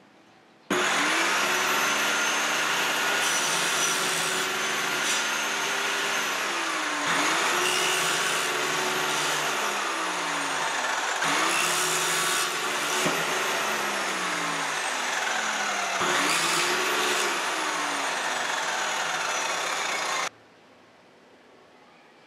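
Electric table saw starting about a second in and cutting wooden boards in several passes; the motor's pitch drops under load with each cut, with a harsh cutting sound, and recovers between cuts. The sound cuts off suddenly near the end.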